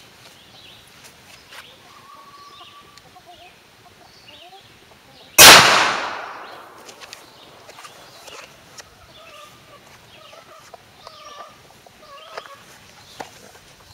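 A single .45 ACP pistol shot about five and a half seconds in, loud and sharp, with a tail that dies away over about a second and a half.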